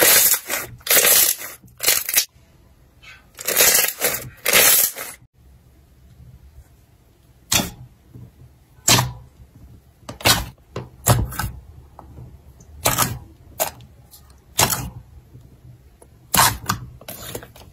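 Slime being squeezed and kneaded by hand, giving wet squelching crackles in separate bursts. For the first five seconds the bursts are longer and close together. After that they come as short, sharp squelches about once a second as a clear jelly slime is pressed and pulled.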